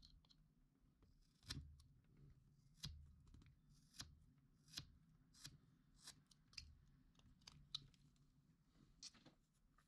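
Small whittling knife slicing into wood: a series of faint, short, crisp cuts, about ten spread irregularly over several seconds, as shavings are pared off a small carving.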